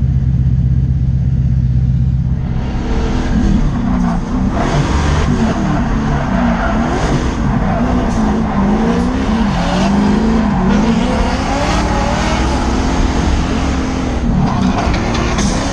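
Drift car engine holding a steady note, then from about two and a half seconds in revving up and down over and over, with tyre squeal as the car slides.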